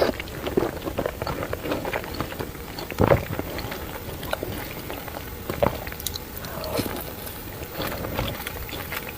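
A person eating spicy noodles, wet chewing and slurping mouth sounds with many small clicks. A louder burst comes about three seconds in.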